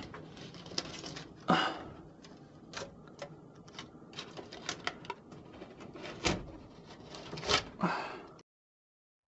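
Hands working on foil-taped galvanized sheet-metal ductwork: scattered clicks and knocks of the metal with a few short crinkling rasps of foil tape. The sound cuts off suddenly near the end.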